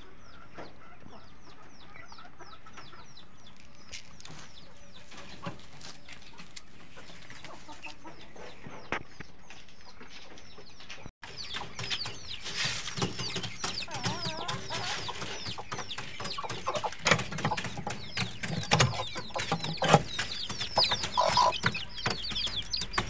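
Chicks peeping: many short, high cheeps with hens clucking, faint at first, then close and loud after a cut about eleven seconds in, with scattered knocks and taps.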